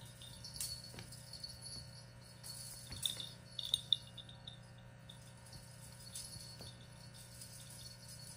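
Cats playing with a cat teaser: faint scattered light jingles and clinks with a few soft taps, the busiest stretch a little after the middle, over a steady low hum.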